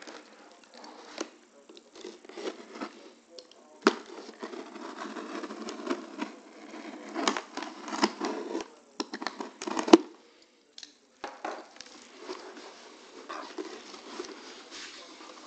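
A knife blade slicing through packing tape along the seam of a cardboard shipping box: a scraping, ripping rasp with sharp clicks and knocks, the loudest about two-thirds of the way through. Cardboard flaps rustle as they are pulled open near the end.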